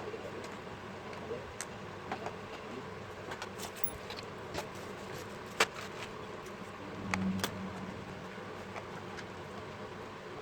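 Faint background noise with scattered small clicks and taps, the sharpest about five and a half seconds in, and a brief low hum around seven seconds in.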